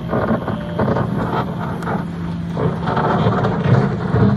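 Excavator's diesel engine running steadily, with irregular scraping and clatter as the mud-laden bucket is tipped down onto gravel.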